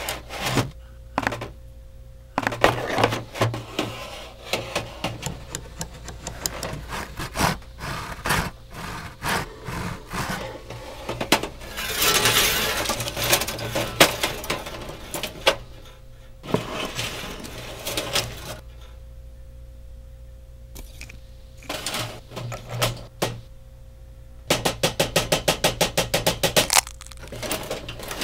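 Hand tools on a metal pegboard knocking, clinking and scraping in a string of separate short hits. About twelve seconds in comes a longer scraping stretch, and near the end a fast run of even clicks.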